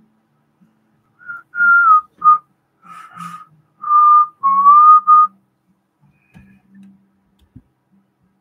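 A person whistling a short tune of about seven notes, a few of them sliding down or up in pitch, with some breath in the tone.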